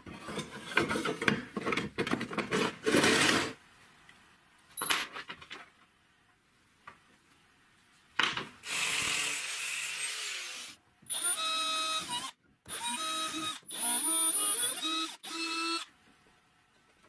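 Metal parts clattering and knocking on a wooden workbench, then a small electric power tool running for a couple of seconds and then in four short bursts of about a second each, its motor whining.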